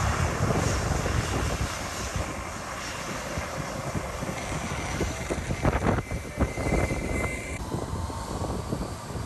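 Airbus A321 jetliner's engines running at taxi power as it rolls and turns onto the runway, a steady rushing hum under gusty wind buffeting the microphone. A thin whine comes in about six seconds in and cuts off suddenly a second and a half later.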